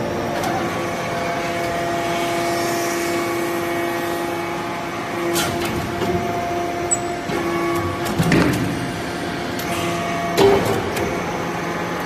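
Hydraulic briquetting press for metal turnings running: a steady hum from its hydraulic pump unit, broken by a few knocks and clunks, about halfway through, around two-thirds of the way and near the end, as the ram works through a briquetting cycle.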